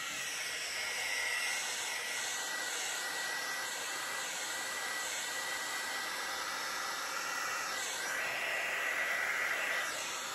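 Handheld craft heat tool running steadily, a fan-driven hiss of hot air with a thin steady whine in it, blowing across wet acrylic paint to spread it into a bloom. It gets a little louder near the end.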